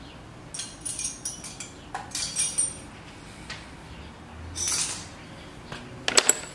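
A crimping tool kit being handled: its steel dies and tool clinking and rattling against the hard plastic case in several short bursts, with a few sharper clicks near the end.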